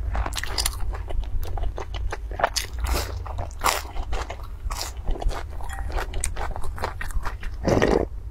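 Close-miked eating: biting and chewing a fried dough stick (youtiao) soaked in a milky drink, with many short, crisp, wet mouth clicks. Near the end comes a louder slurp as she drinks from the bowl, over a steady low hum.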